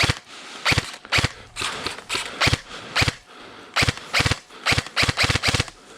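Airsoft guns firing single shots, a quick irregular string of over a dozen sharp cracks.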